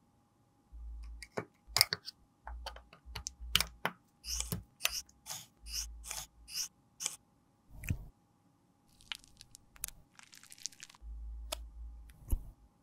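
An Estée Lauder lipstick case being handled on a metal lipstick mold: a string of sharp clicks and taps, with a run of short scraping strokes, about three a second, in the middle.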